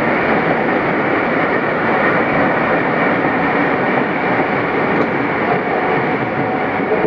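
Pakistan Railways passenger coaches rushing past at speed at close range: a steady, loud rush of wheels running on the rails.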